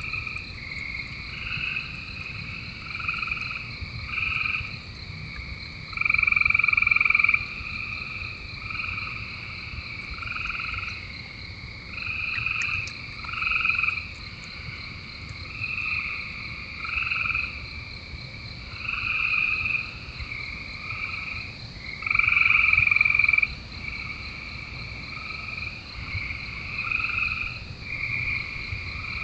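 A chorus of frogs calling: overlapping trilled calls about a second long, repeating every second or two, with two calls louder than the rest about six and twenty-two seconds in. A steady, high, fast-pulsing trill runs underneath.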